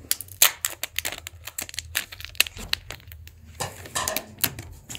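Clear plastic protective film crinkling and crackling as it is peeled off a new smartphone, in many irregular small snaps, with a short rustling tear a little past three and a half seconds in.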